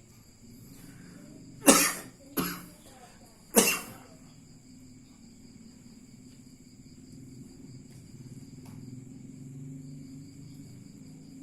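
A man coughs three times in quick succession, short sharp dry coughs; he is a massage patient suffering from a persistent cough.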